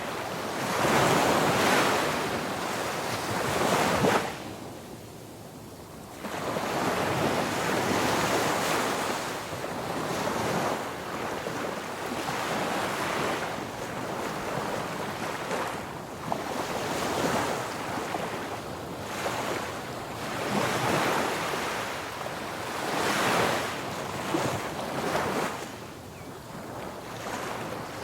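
Ocean waves breaking on a beach, the surf swelling and easing in repeated surges every few seconds, with a brief lull about five seconds in.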